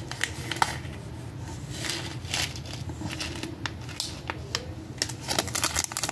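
A small plastic packet being picked open and handled, with scattered light crinkles and clicks as small nail charms are tipped out into a hand, over a low steady hum.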